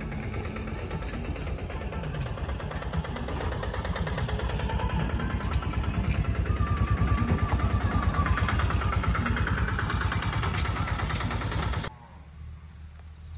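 An engine running with a rapid, even pulse, growing louder toward the middle, then cutting off abruptly near the end to a quieter background.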